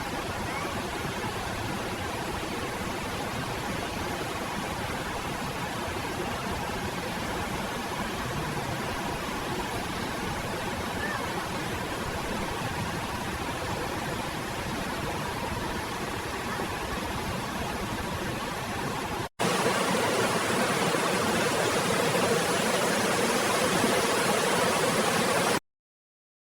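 Steady rushing water. It jumps to a louder level at a sudden cut about two-thirds of the way in, then stops abruptly just before the end.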